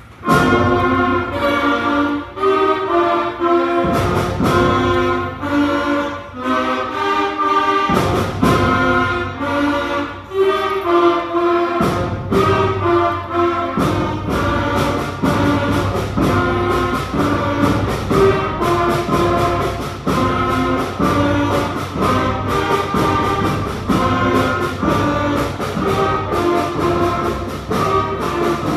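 A school concert band of flutes, clarinets, trumpets, trombones and bass drum strikes up a piece together just after the start and plays on. Strong accents come every few seconds at first, then a steadier beat from about halfway through.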